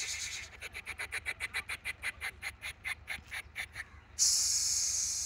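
A man imitating a train with his voice: rapid rhythmic chugging puffs, about five a second. About four seconds in comes a loud steady hiss that mimics the air let out as the train stops.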